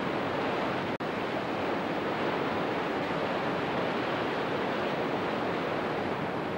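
Whitewater rapids on the Fraser River rushing over boulders: a steady, even rush of churning water, cutting out for an instant about a second in.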